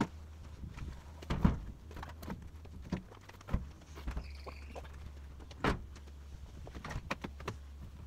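Knocks and clunks of balls of baler twine being handled and set into a square baler's twine box, several sharp thuds with a brief squeak in between, over a low steady hum.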